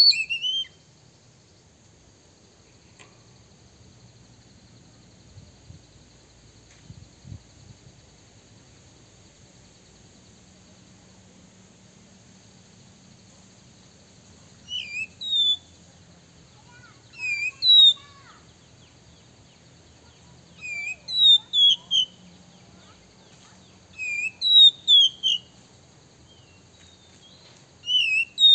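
Male oriental magpie-robin calling: short bursts of two to four sharp, down-slurred whistled notes, one right at the start and then every few seconds from about halfway in, after a long quiet stretch. A faint steady high hiss runs underneath.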